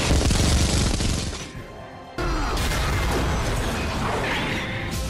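Dubbed action sound effects over music: a dense crashing blast fades out about a second and a half in, then a sudden loud burst of booms and mechanical clatter with gliding whooshes.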